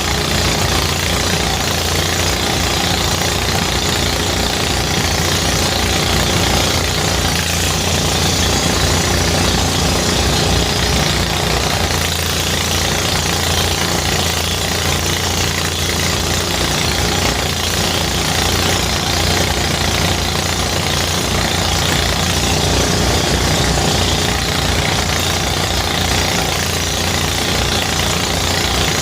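Engine-driven rice threshing machine running steadily: a fast low engine pulse under a constant hiss, unchanging in speed.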